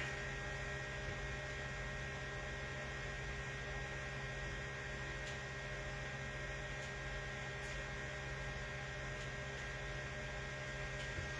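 Steady electrical hum, like mains hum, with faint hiss underneath and a couple of faint ticks.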